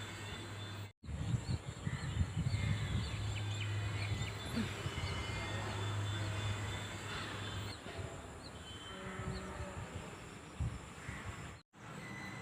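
Outdoor ambience with faint bird chirps over a low rumble and a steady low hum; the hum stops about eight seconds in. The sound drops out for an instant about a second in and again near the end.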